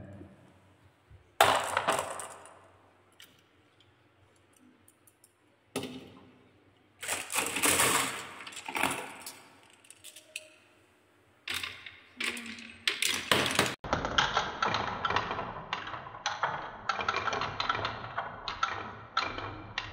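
Wooden track pieces and marbles being handled: a sharp knock of wood about a second in, then several bursts of marbles clattering together. From about 14 s on, many marbles rolling down a HABA wooden marble run slope and spiral make a dense, rapid clicking patter.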